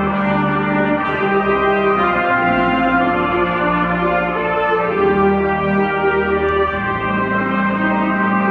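School concert band of woodwinds, brass and percussion playing a passage of held chords that change every second or two.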